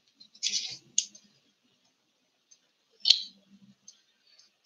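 A few short clicks and soft rustles, such as handling noise at a desk: a brief hiss about half a second in, a click about a second in, and another click with a short hiss about three seconds in.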